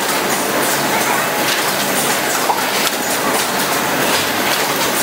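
HM-ZD6418 automatic rigid box making machine running: a steady mechanical clatter of many quick clicks and knocks over a constant noise.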